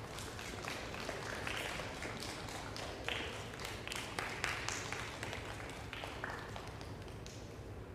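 Light, scattered clapping mixed with taps of shoes on a stage floor, irregular, a few sharp strikes a second.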